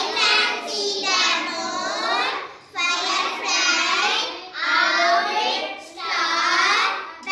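Children's voices chanting an answer in sing-song unison, in about five separate phrases.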